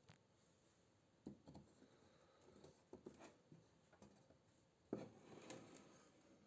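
Faint handling noises: scattered light knocks and clicks, with a firmer knock and a brief scraping rustle about five seconds in.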